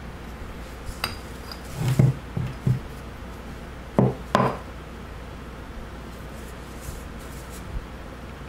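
Metal parts of a hydraulic control valve knocking and clinking against each other and the workbench as they are handled. There are a few light clicks, a cluster of dull knocks about two seconds in, and two sharp knocks about four seconds in.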